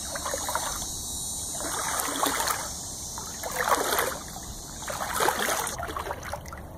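Footsteps wading through shallow standing swamp water, sloshing and splashing with each stride, about four strides in all.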